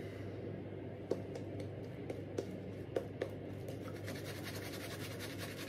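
Zenith silvertip badger shaving brush scrubbing lather onto a bearded cheek: a rapid scratchy swishing, brisker from about four seconds in, with a few small clicks.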